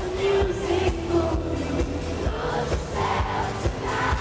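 Live pop band playing with a woman singing lead: electric guitar, bass and a steady drum beat under the vocal. Heard through an audience recording at a concert.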